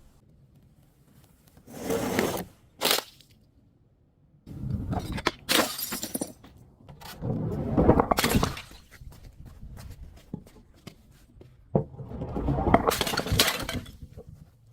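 Glass bottles breaking and shattering in a series of separate breaks, about five in all, each a short burst of cracking and tinkling glass with quieter gaps between.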